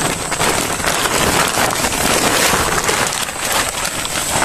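Woven plastic fertilizer sack rustling and crinkling as it is handled close up while large rohu fish are packed into it: a dense, crackly scrunching. A steady high-pitched whine runs behind it.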